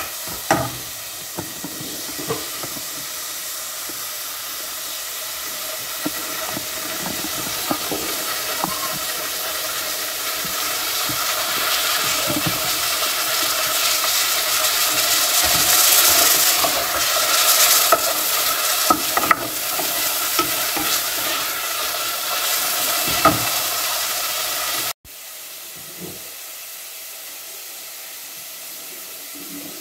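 Chopped onion sizzling in oil in a pot, stirred with a wooden spoon that knocks against the pot now and then; the sizzling swells toward the middle. After a sudden cut near the end, the hot cooking water from a pot of boiled potatoes pours into a steel sink.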